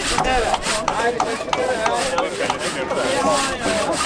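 Creaking and rubbing: many short, overlapping squeaks that bend up and down in pitch, with scattered sharp knocks, like wood or rubber grinding together under strain.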